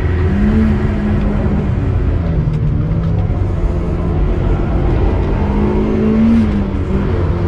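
Turbocharged Mazda MX-5's four-cylinder engine running hard at speed. Its pitch rises briefly, drops about two seconds in, then climbs again near the end.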